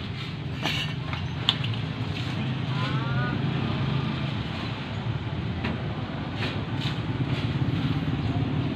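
A motor engine running steadily in the background, growing louder near the end. Light clicks and knocks of plastic pipe being handled in the first couple of seconds.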